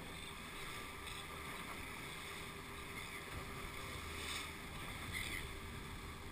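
Outboard motor running steadily as the boat moves under way, with water rushing in the churning wake.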